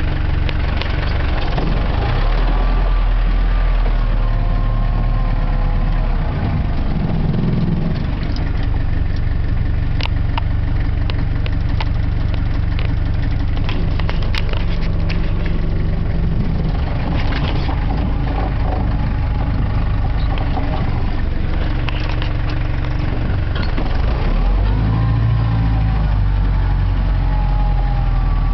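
Off-road jeep's engine running throughout, its pitch rising and falling with the throttle as it moves over rough ground. Short knocks and rattles from the vehicle come through now and then.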